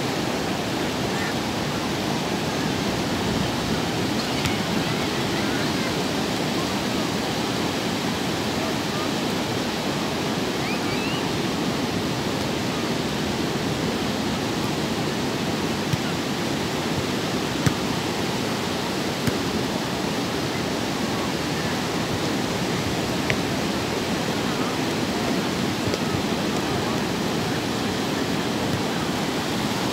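Steady wash of sea surf breaking on a beach, with a few short clicks in the second half.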